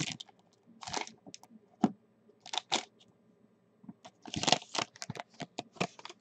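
Foil wrapper of a football trading-card pack crinkling in the hands as the cards are pulled out and laid on a stack, in short scattered rustles.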